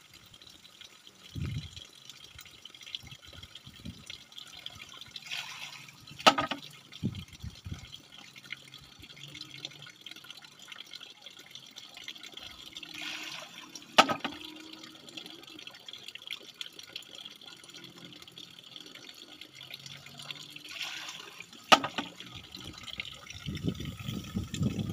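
Bamboo water knocker (pancurendang): water trickles steadily into its pivoting bamboo tube, which tips and drops back to strike a bamboo rest with a sharp hollow knock about every eight seconds, three times, each knock just after a brief rush of water. It is a rat scarer, and with bamboo rather than stone under it the knock is less ringing.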